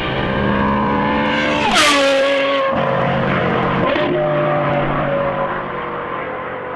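Novitec-exhausted Ferrari 812 Superfast's 6.5-litre V12 running hard on the approach, with a sharp drop in pitch and a brief crack about two seconds in and another drop about four seconds in at the gear changes, then a steady, slowly falling note.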